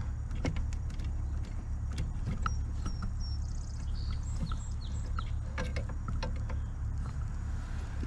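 Small metallic clicks and taps as a quarter-inch stainless steel brake line and its flare nuts are worked loose from the master cylinder by hand, over a steady low rumble. A bird chirps a few times in the middle.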